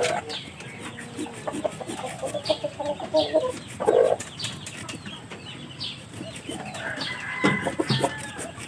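Chickens clucking on and off, over the repeated rasping strokes of a hacksaw blade drawn back and forth through a rooster's spur.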